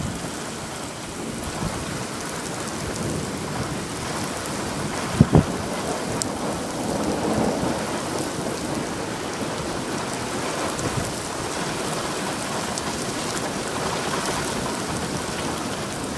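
Rain falling steadily in a thunderstorm, with thunder rumbling, and one brief sharp thump about five seconds in.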